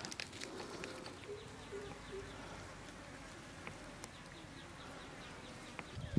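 Faint outdoor ambience with an insect buzzing, its hum strongest between about one and two seconds in, and a few faint clicks.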